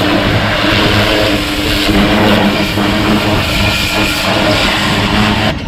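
Greenworks electric pressure washer running: a steady motor and pump hum under the hiss of the water spray, which cuts off suddenly at the very end.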